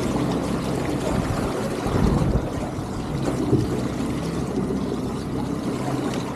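A boat motor running steadily at low speed, with a hiss of wind and water around the hull.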